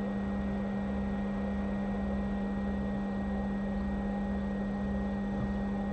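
Hot air rework station blowing steadily, a constant hiss with a low hum, as it melts solder paste to reball a phone's transceiver IC.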